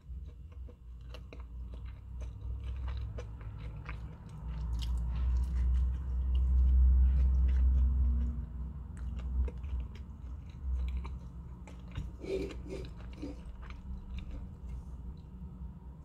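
A person chewing a mouthful of chicken burger, with many small wet mouth clicks and a light crunch. A low rumble swells and is loudest midway.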